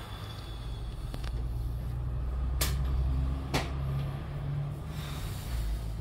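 Two sharp cracks about a second apart from a patient's lower back during a side-lying chiropractic lumbar adjustment: the joints cavitating under the thrust. A low steady rumble runs underneath.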